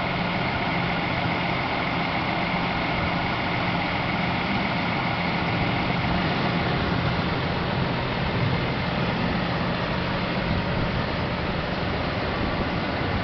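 Case IH 350 Rowtrac tractor's diesel engine running at a steady speed, an even low hum with a constant whine above it.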